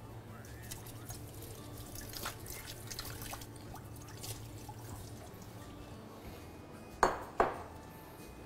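Dishes being handled at a kitchen sink: water and light clinks of glass and crockery, then two sharp knocks with a short ring, less than half a second apart, about seven seconds in.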